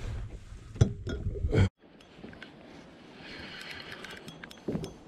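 A couple of sharp knocks over a low rumble of handling, then, after an abrupt cut, a spinning fishing reel being wound, its gears whirring with a fine rapid ticking, and a single dull thump near the end.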